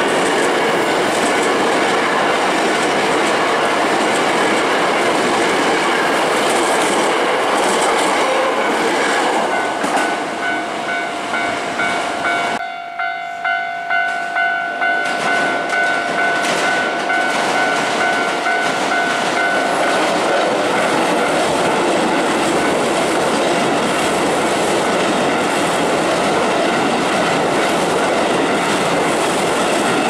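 Hankyu electric commuter trains passing close by, wheels clattering over the rail joints. In the middle a level-crossing alarm bell rings steadily, pulsing about twice a second, as the next train approaches.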